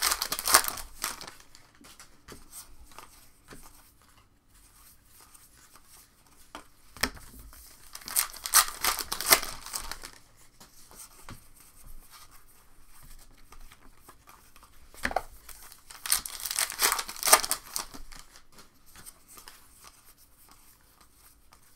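Trading card pack wrappers being torn open and crinkled, in three loud bursts: at the start, about seven seconds in and about fifteen seconds in. Lighter rustling of wrappers and cards runs between them.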